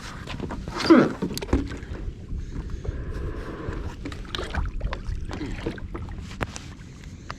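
Wind rumbling on the microphone, with scattered clicks and knocks of fishing gear being handled, and a louder rustling burst about a second in.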